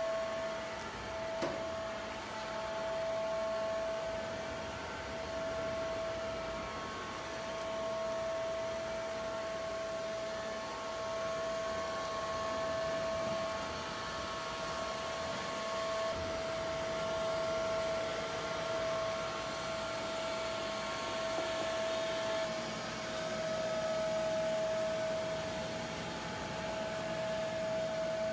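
Robot vacuum cleaner running: a steady motor whine with a fainter higher tone over fan hiss, the whine dropping a little in pitch about two-thirds of the way through. A single sharp click about a second and a half in.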